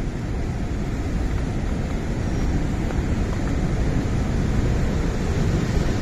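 Steady rush of a large waterfall, Athirappilly Falls, in heavy monsoon flow: an even, unbroken noise with no pauses.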